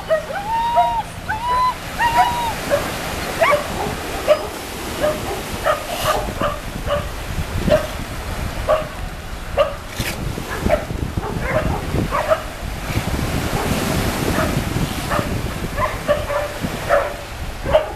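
Dogs barking repeatedly in short, sharp barks, with high, arching whines in the first couple of seconds, over the wash of surf breaking on the shore.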